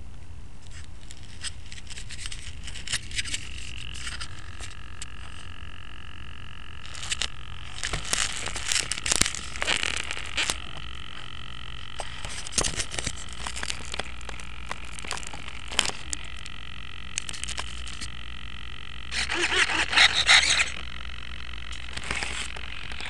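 Scratching and scraping handling noise on a small onboard camera's microphone as the model plane is handled in the grass, loudest about eight to ten seconds in and again near twenty seconds. Underneath runs a steady low hum, joined about four seconds in by a faint steady high whine.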